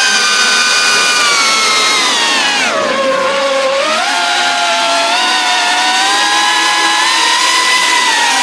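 FPV whoop drone's brushless motors and propellers whining in flight; the pitch drops sharply about two and a half seconds in as the throttle comes off, then climbs back and holds fairly steady.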